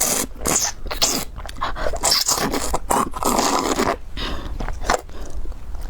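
Close-miked scraping and crunching of a spicy noodle, shrimp and squid meal being handled and bitten, in irregular noisy bursts.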